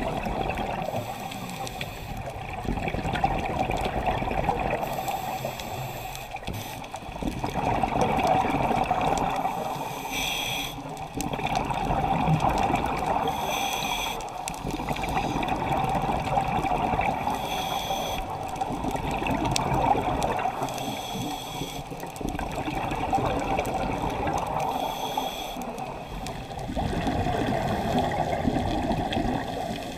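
A scuba diver breathing through a regulator underwater: a short hiss on each inhale every three to five seconds, with the gurgling of exhaled bubbles swelling and fading in between.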